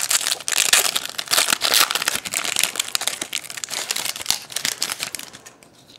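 Foil trading-card pack wrapper being torn open and crinkled by hand, a dense crackling that dies down near the end.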